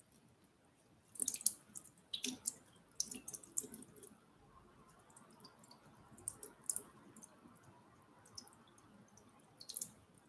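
Faint trickle of tap water into a bathroom sink, with irregular small drips and splashes as a wet, soapy makeup brush is worked and rinsed in the palm under the stream.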